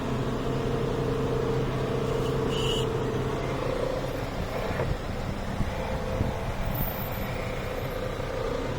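2004 GMC Yukon's Vortec V8 idling, known to idle rough, while its throttle body is cleaned with carburetor cleaner. The steady hum breaks up about four seconds in and steadies again near the end.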